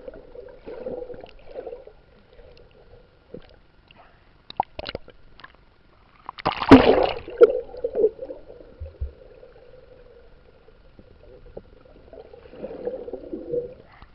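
Water gurgling and sloshing close to the camera, with scattered small knocks and a louder splash about seven seconds in.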